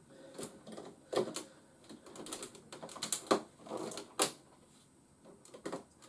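Hard plastic clicks and knocks of a Fans Toys Marauder (Menasor) Transformers figure being handled, its parts snapping together as a Stunticon car is fitted onto the combiner. The clicks come irregularly, with the sharpest about a second in, around three seconds in and just after four seconds.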